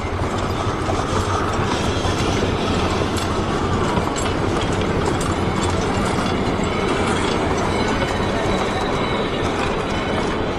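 Narrow-gauge open passenger cars rolling past on the track, a steady rumble and rattle of wheels on rail.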